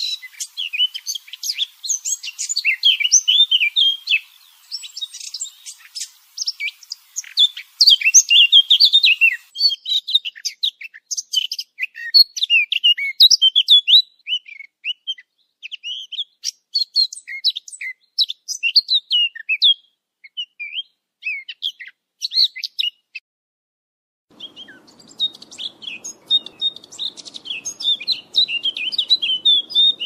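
Eurasian blackcap song: a fast, dense run of high chirping and warbling notes. It breaks off for about a second roughly three-quarters of the way through, then resumes with a faint low hum underneath.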